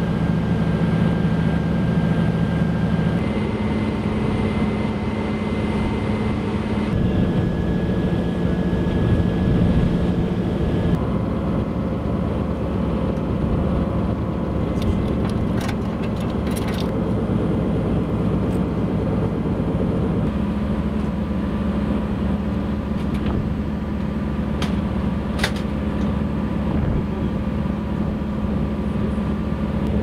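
Steady drone of a warship's engines and machinery while under way, its pitch shifting slightly a few times, with a few short clicks.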